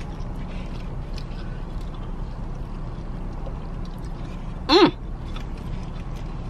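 Steady low rumble inside a parked car, with faint chewing as fried chicken is eaten, and one short voiced 'mm' from the eater nearly five seconds in.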